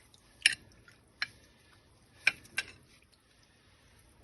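Four sharp clicks or knocks, the loudest about half a second in and just after two seconds in.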